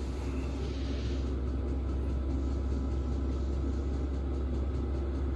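Chinese 5 kW diesel air heater running steadily at full power, its combustion blower and burner giving a steady low rumble and hum while it heats a cold cab.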